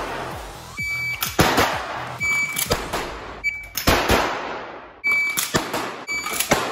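Semi-automatic pistol fired about ten times, mostly in pairs about half a second apart. Each shot echoes in an indoor range.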